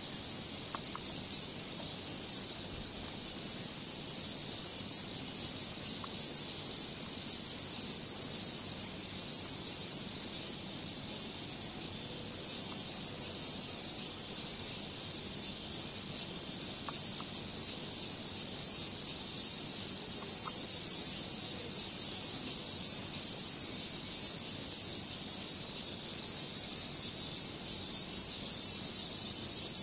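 Cicadas in chorus: a steady, unbroken high-pitched hiss.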